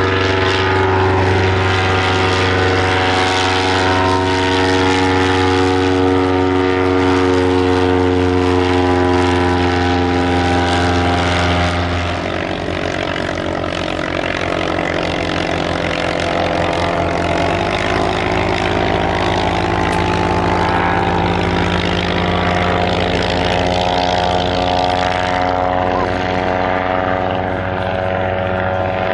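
Propeller aircraft engine running, a steady drone whose tone shifts about twelve seconds in and again around eighteen seconds.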